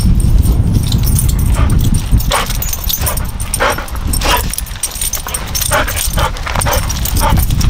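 Dog giving several short whimpers and yips, about one a second, over a steady low rumble.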